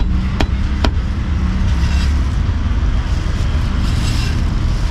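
Three quick, sharp knocks of a meat cleaver chopping cooked meat on a wooden chopping block in the first second, over a steady low rumble of street traffic.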